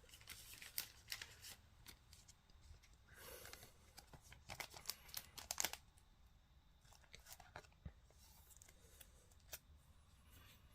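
Faint handling of trading cards and card-pack wrappers: scattered soft crinkles and clicks, busiest about four to six seconds in, then quieter.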